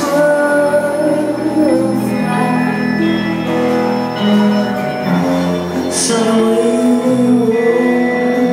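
Live concert music with a woman's singing voice, held notes over the band's accompaniment, recorded from the audience.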